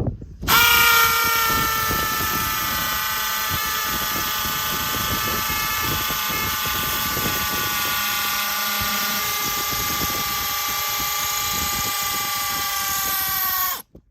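Makita 40-volt and 18-volt cordless hammer drills with quarter-inch masonry bits, hammer-drilling into limestone. A steady motor whine with hammering noise comes up to full speed about half a second in and cuts off suddenly near the end.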